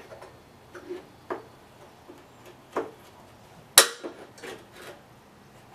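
A few separate sharp clicks and knocks of parts being handled and fitted on a push mower's deck, the loudest a sharp snap a little under four seconds in.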